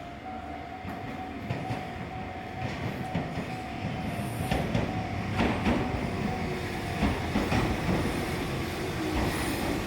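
Enoden electric train passing, its wheels clicking over the rail joints, loudest in the middle. A repeating ringing tone runs above it and stops about seven seconds in.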